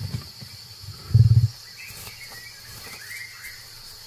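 Forest ambience: birds chirping several times over a steady high insect drone, with a short, deep, pulsing rumble about a second in.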